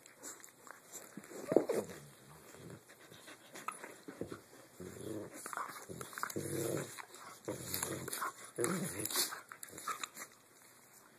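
Two dogs play-fighting, growling in repeated short bouts, with one sharp loud sound about a second and a half in.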